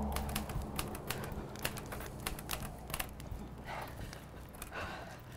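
Typewriter keys being struck: an irregular run of sharp clacks, several a second.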